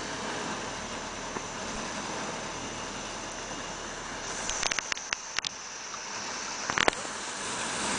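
Land Rover Series III engine idling under a steady hiss. About halfway through comes a quick run of sharp knocks and clicks, with two more a little later, as someone climbs onto the vehicle's back.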